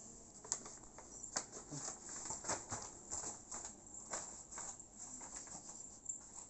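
Irregular light taps and paper crinkles: a toddler's steps on a foam play mat and a paper shopping bag swinging and rustling on her arm.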